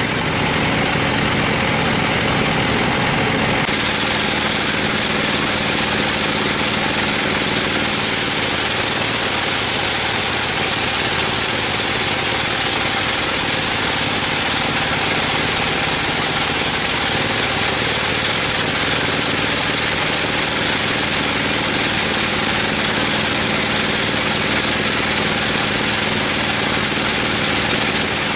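Sawmill machinery running steadily, a motor's even hum under dense noise, with a change in tone about four seconds in.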